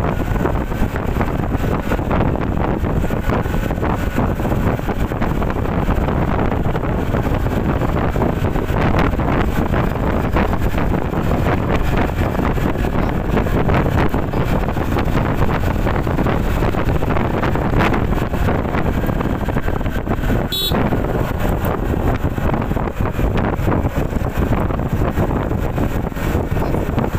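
Wind rushing over the microphone of a motor scooter riding at about 50 km/h, with the vehicle's running noise underneath. A single short click comes about twenty seconds in.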